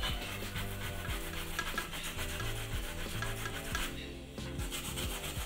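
Raw cassava root being grated by hand on a metal box grater, a quick run of rasping strokes with a short pause about four seconds in.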